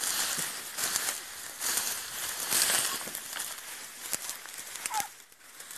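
Tall dry grass swishing and crackling in irregular surges as someone pushes through it on foot.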